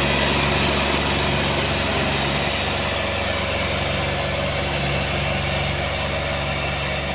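Sonalika tractor's diesel engine running steadily at low revs while hitched to a heavily loaded sugarcane trolley.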